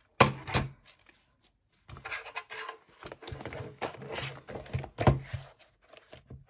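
A stiff kraft-paper journal page being handled and laid on a paper trimmer. There is a sharp knock just after the start, then rustling and sliding paper with several small knocks as the page is lined up under the cutting arm.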